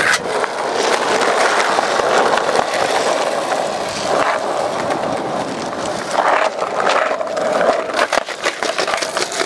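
Skateboard wheels rolling over rough asphalt, a steady gritty rumble, with a few sharp clacks of the board near the end.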